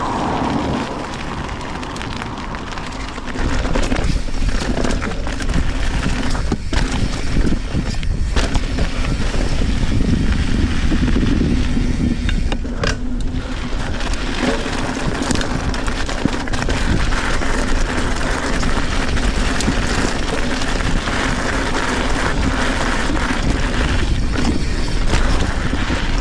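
Trek Fuel EX 7 mountain bike riding a sandy trail: steady tyre rumble with scattered knocks and rattles from the bike, getting louder about three seconds in.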